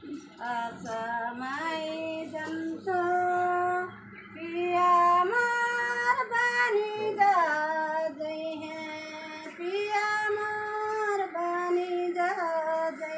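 A woman singing a slow folk song solo, holding long drawn-out notes that step and slide from one pitch to the next, with short breaths between phrases.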